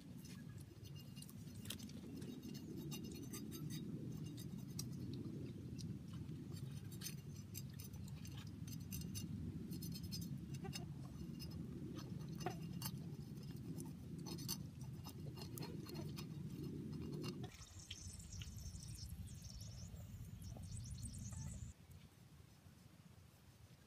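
Faint clicks and scrapes of a knife being drawn along snakes in a metal wok of water, over a steady low rumble that thins about two-thirds of the way through and drops away near the end.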